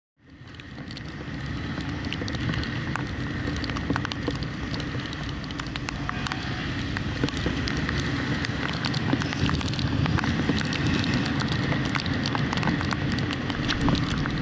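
Ride noise from a Honda Giorno scooter on a wet road: wind rush and the scooter's running drone on an action camera, sprinkled with many small ticks of raindrops hitting the camera, over a faint steady high whine. It fades in over the first second or two.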